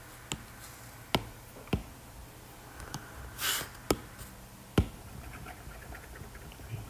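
A stylus tapping on a tablet's glass screen, about six sharp, separate taps spaced irregularly, with one short hiss near the middle.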